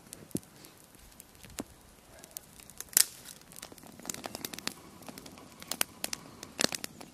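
Small twig fire crackling, with scattered sharp pops. From about four seconds in the crackling and rustling grow denser.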